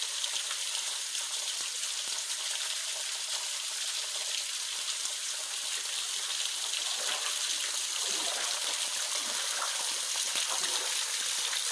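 Waterfall's falling water making a steady hiss.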